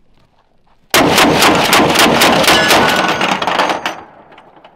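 .50 BMG rifle firing: a sudden, very loud blast about a second in, followed by about three seconds of rapid repeated cracks and rumble that fade out shortly before the end.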